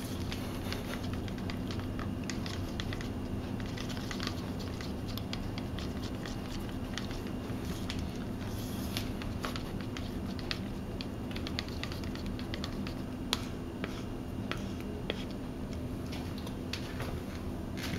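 Wooden stir stick scraping and clicking against the sides of a clear plastic cup as it stirs two-part liquid plastic (Smooth-On Crystal Clear 202), a run of faint, irregular ticks and scrapes. The parts are being worked together to clear the haze from the mix.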